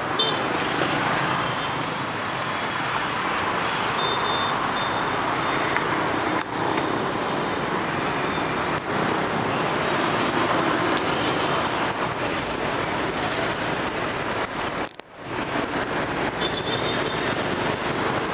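Steady traffic noise of a busy street full of motorbikes, a continuous wash of engines and road noise. The sound drops out sharply for a moment about fifteen seconds in.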